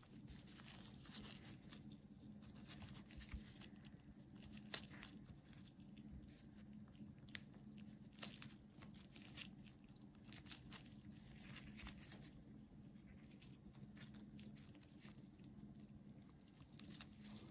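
Faint, scattered small clicks and crunches of whole cloves being pushed one by one into an orange's peel by gloved hands, over a low steady hum.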